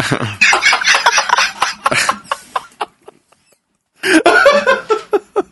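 Men laughing hard, breaking off for about a second near the middle, then laughing again.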